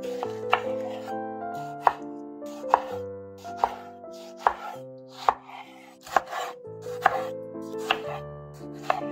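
Kitchen knife slicing a tomato on a bamboo cutting board: about ten sharp knocks of the blade meeting the board, roughly one a second, each led in by a brief slicing sound through the fruit. Soft piano music plays under it.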